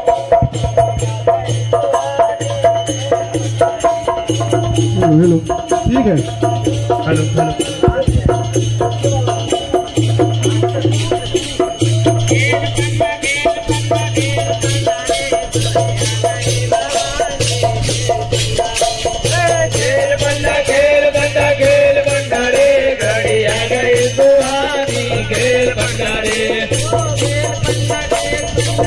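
Devotional folk singing by a group of men, accompanied by a dholak drum and jingling, rattling hand percussion. The voices come up more strongly about two-thirds of the way through, over a low hum that pulses on and off about every second and a half.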